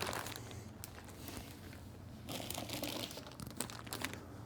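Faint crinkling and rustling of packaging as parts are taken out of their wrapping, with small scattered clicks.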